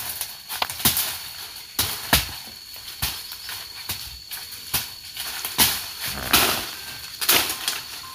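Repeated chopping strikes of a blade into a tree being felled, about a dozen sharp blows coming irregularly, roughly one a second.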